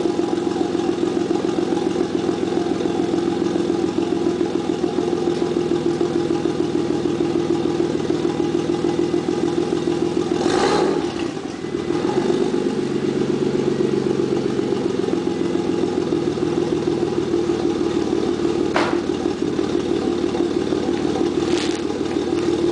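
Toyota Supra's twin-turbo 2JZ-GTE straight-six idling steadily on a cold start, heard at the tip of an HKS carbon titanium catback exhaust. About halfway through there is a short rush of noise and a brief dip in the idle, and two sharp clicks come near the end.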